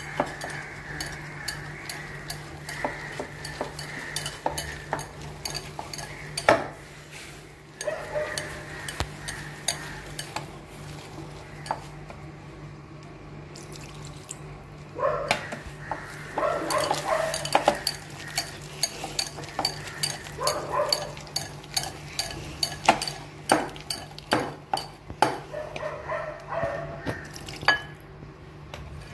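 Metal wire whisk beating a batter of Oreo biscuit powder and milk in a bowl, the wires clicking and scraping against the bowl in quick, irregular taps.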